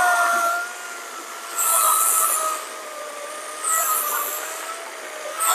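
SKIL CS4555-10 14-inch 40V brushless cordless chainsaw cutting through a log: a steady electric motor whine under load, with the chain's high rasp in the wood surging several times as it bites.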